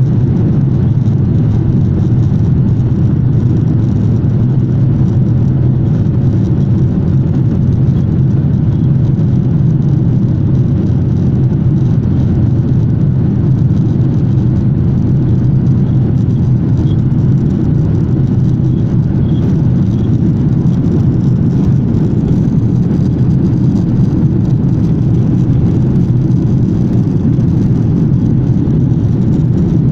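Steady low rumble of an airliner's jet engines and cabin air, heard from inside the cabin while the plane taxis on the ground, with no rise in power.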